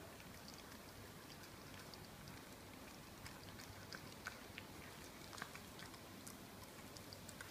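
Mini dachshund puppy chewing and gnawing at a raw lamb shank held in a hand: faint, irregular clicks, more of them in the middle.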